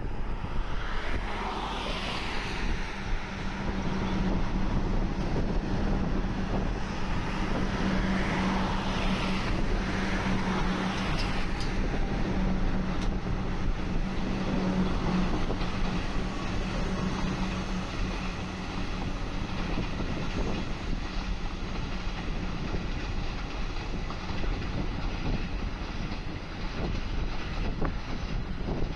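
Electric suburban train running past below, its electric drive giving a whine that glides in pitch twice in the first dozen seconds over a steady hum.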